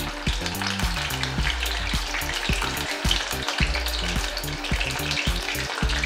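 Maida-and-cornflour-battered paneer pieces deep-frying in hot oil in a kadai: a steady sizzle full of small crackles and pops.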